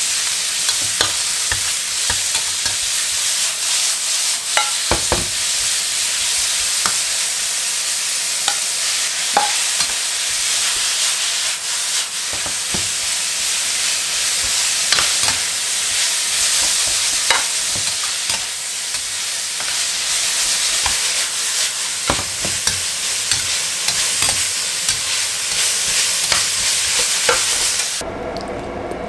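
Pork and winged beans sizzling in a hot wok as a metal spatula stirs and tosses them, with frequent scrapes and clicks of the spatula against the pan. The sizzle cuts off suddenly near the end.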